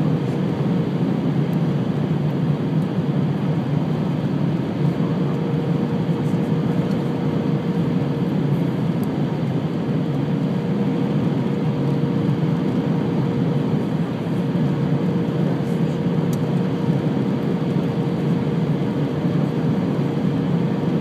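Cabin noise of an Airbus A320 on final approach: a steady rush of jet engines and airflow heard through the fuselage by the wing, with a steady hum that comes in about five seconds in and holds.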